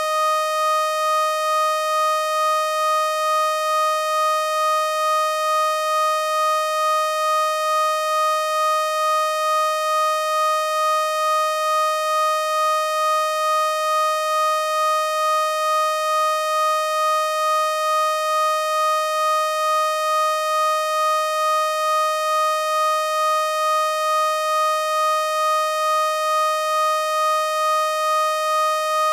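A single steady, buzzy electronic tone, a sound-healing frequency tone made by software from a voice sample, held at one unchanging pitch with a gentle regular throb in loudness.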